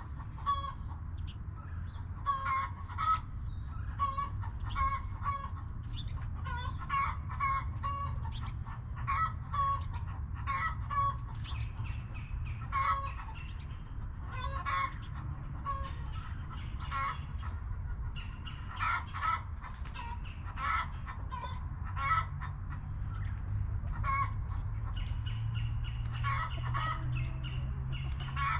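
A flock of backyard hens clucking, one short cluck after another all through, over a steady low rumble.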